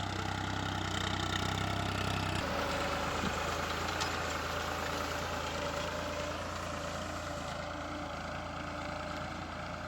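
Farm tractor's engine running steadily while it pulls a plough; the engine note shifts slightly about two and a half seconds in.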